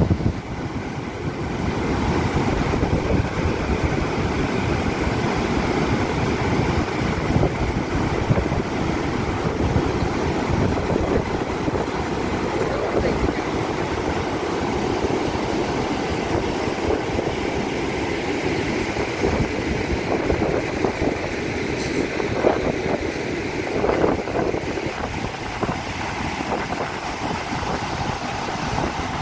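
Water rushing over the open spillway gates of a concrete dam and crashing into the churning pool at its foot: a loud, steady roar of falling water.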